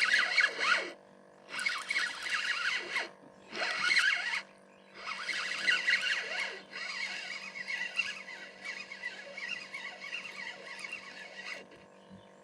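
Fishing reel being cranked in spurts while a hooked catfish is fought in: several stretches of reeling lasting one to five seconds each, separated by short pauses.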